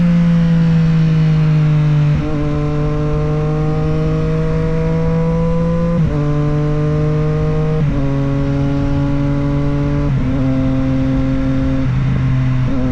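Triumph Street Triple 765 RS inline three-cylinder engine and exhaust pulling steadily while riding. The pitch drifts slowly, with short breaks in the note about every two to four seconds, typical of gear changes.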